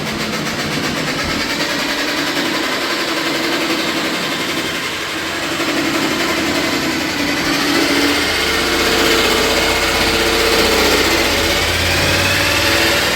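Electric jigsaw cutting through a wooden board, its reciprocating blade running steadily with the pitch shifting slightly as the cut goes on.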